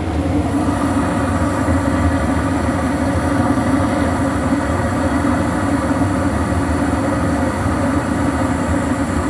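Goodman 90+ gas furnace with a cracked heat exchanger running: a steady, unbroken rumble of the burners and blower, with a low hum beneath.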